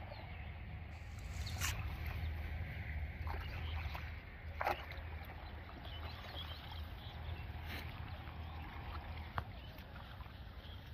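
Water sloshing and splashing during net fishing, with a few short sharp splashes or knocks, the strongest about halfway through, over a steady low rumble.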